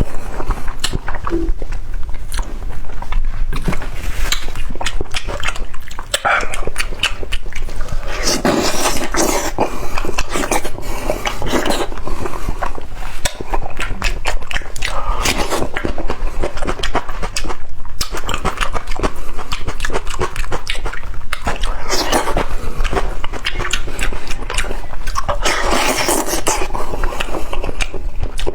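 Close-up eating of spicy meat: wet chewing, lip-smacking and sucking, with many quick clicks and louder wet passages now and then.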